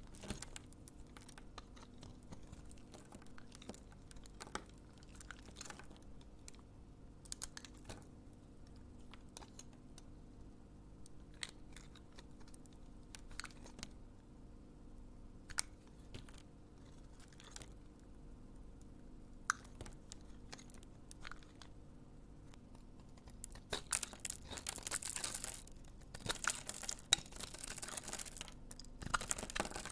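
Knife cutting bars of soap into cubes: scattered light taps and clicks, then a stretch of dense crunching and crackling in the last few seconds as the blade goes through the soap.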